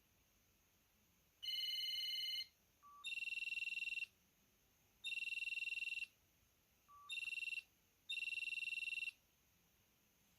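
A Mitsubishi MT-230 mobile phone sounding its basic built-in ringtones: five short bursts of a trilling electronic ring, about a second each with gaps between them, and a short lower beep before two of them.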